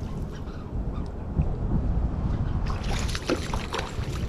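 Wind buffeting the microphone as a steady low rumble, with scattered faint clicks and rustles in the second half.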